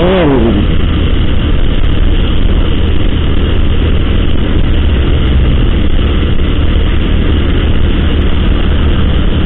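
Steady wind rumble buffeting the microphone of a motorcycle rider at road speed, with the Honda motorcycle's engine and tyre noise underneath.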